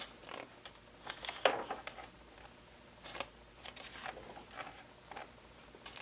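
Pages of a K-pop album photobook being handled and turned: a few soft, scattered paper rustles.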